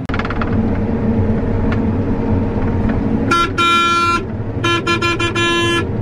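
Combine engine droning steadily, heard from inside the cab. About halfway through, a vehicle horn honks in two bouts, the second broken into several short toots.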